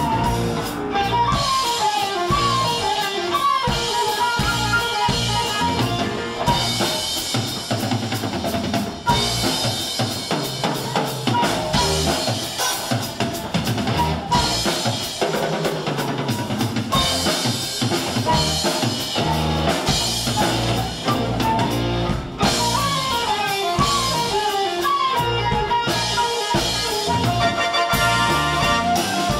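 Background music: an instrumental break of a jump-blues band number, with a busy drum kit, bass, guitar and quick runs of piano notes.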